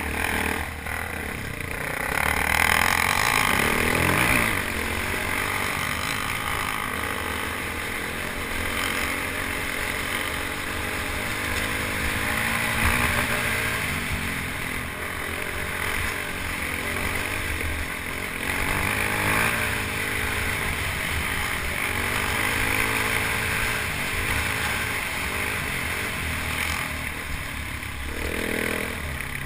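Single-cylinder dual-sport motorcycle engine running under throttle as the bike climbs a rough dirt trail, heard from the rider's helmet with a steady rush of noise. The engine note swells and eases with the throttle.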